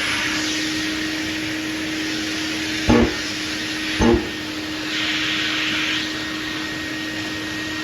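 Shop vacuum running with a steady hum and hiss, just up to speed. Two sharp knocks about three and four seconds in, and a brief stretch of louder hissing a little later.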